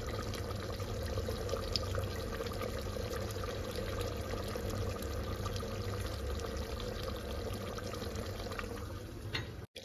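Chicken broth with yogurt bubbling steadily in an open aluminium pressure cooker over a gas flame, with a steady low rumble underneath; it cuts off abruptly near the end.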